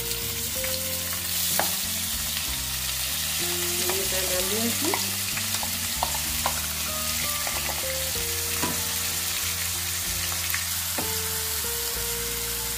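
Coarsely ground onion sizzling in hot oil in a frying pan as it is scraped in from a steel grinder jar and stirred with a wooden spatula, with a few scattered knocks and scrapes of the jar and spatula against the pan.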